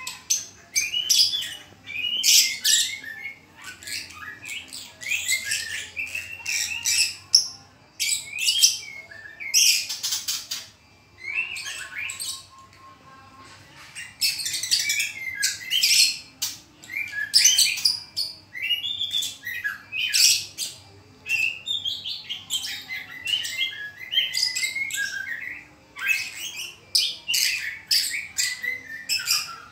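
White-rumped shama (murai batu) singing in fast trotolan-style phrases of rapid chattering, sweeping high notes, one burst after another with short pauses between.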